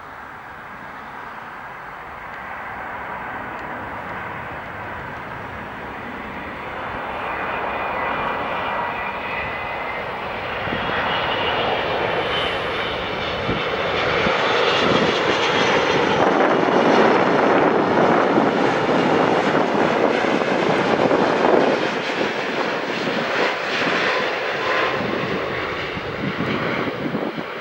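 Four-engine widebody jet airliner arriving and passing by, its engine noise growing steadily louder, peaking about two-thirds of the way through and then fading, with a high fan whine in it that slides slightly lower.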